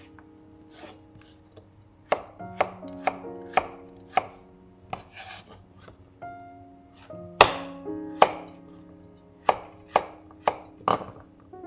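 Knife chopping vegetables on a cutting board: a dozen or so sharp strokes at an uneven pace, starting about two seconds in, the loudest a little past halfway.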